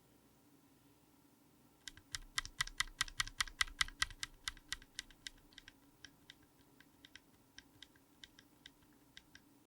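Typing on a mechanical keyboard fitted with stock, unlubed Durock Mamba linear switches. The keystrokes start about two seconds in as a quick run of several presses a second, then thin out into sparser, softer strokes before stopping suddenly near the end.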